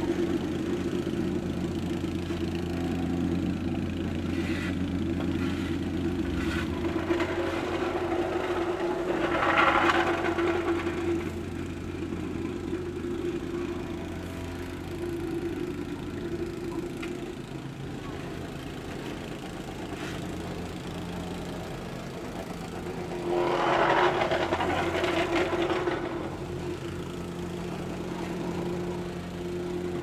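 Vibrating plate compactor's small engine running steadily, the plate vibrating against fresh asphalt with a constant hum. Twice, about ten seconds in and again near twenty-four seconds, a louder rush of noise swells over it for a couple of seconds.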